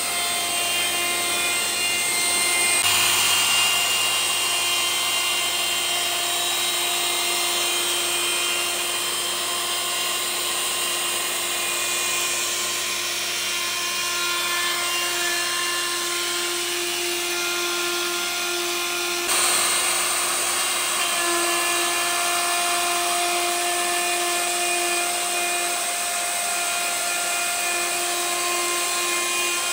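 Festool plunge router running at speed and cutting wood, a steady high whine over cutting noise, as it takes a shallow first pass of about 2–3 mm around a radius. The sound shifts abruptly about 3 and 19 seconds in.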